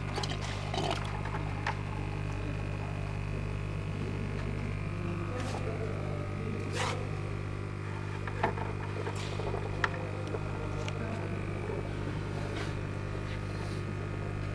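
Steady low machine hum with occasional sharp clicks and knocks, two of them louder just past the middle.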